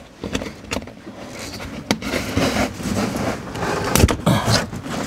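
Plastic bumper cover and fender liner being flexed and handled, a scraping rustle broken by several sharp clicks and knocks, the loudest about four seconds in.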